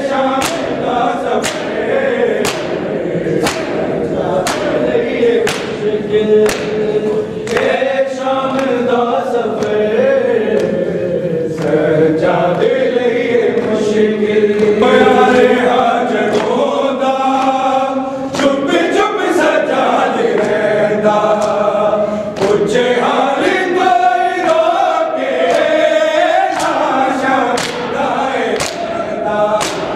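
A group of men chanting a noha in unison, with rhythmic matam: open palms striking bare chests about once a second, keeping time with the chant.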